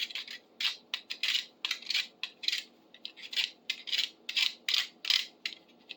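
Quick back-and-forth scrubbing strokes, about three a second, against the rusty iron head of a fireplace poker as the rust is cleaned off by hand.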